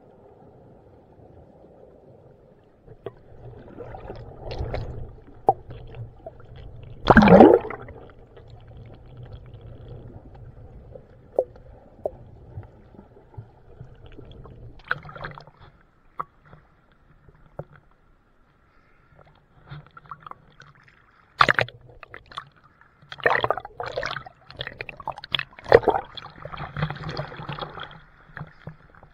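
Water sounds picked up by an action camera held underwater: a low murmur with scattered knocks and bubbling rushes, the loudest about seven seconds in. Toward the end the water grows busier and splashier as the camera comes up to the surface.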